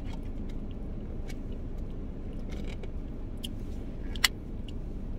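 Steady low hum inside a parked car's cabin, with small clicks and mouth sounds from someone tasting ice cream off a plastic spoon, and one sharper click about four seconds in.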